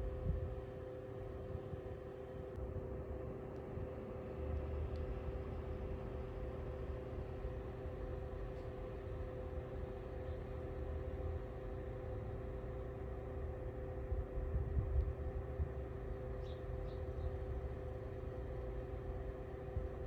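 Lasko CT32791 ceramic tower space heater running, its blower fan giving a steady hum of two even tones over a low, uneven rumble that swells briefly about three quarters of the way in.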